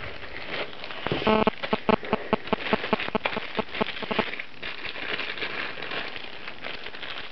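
Plastic packaging crinkling and rustling as it is handled, in a dense run of irregular crackles that thins out after about four seconds, with a brief squeak about a second in.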